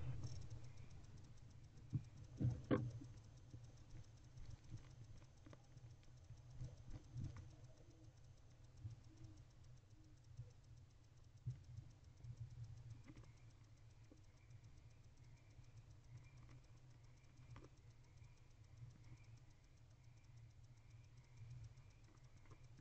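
Barn owl feeding on a rodent: faint scattered clicks, scuffs and taps from its beak and feet working the prey on the nest-box floor, with a few louder knocks about two to three seconds in, over a low steady hum.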